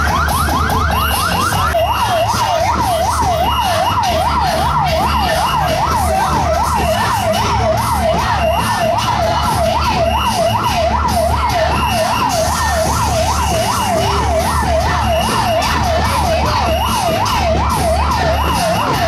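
Electronic siren yelping, its pitch rising and falling rapidly over and over. Its sweep changes to a slower, wider cycle about two seconds in. A low thudding beat runs underneath.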